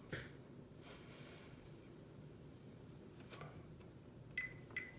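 Faint light clicks and clinks of multimeter test leads and meters being handled on a bench, with two sharp ticks close together near the end.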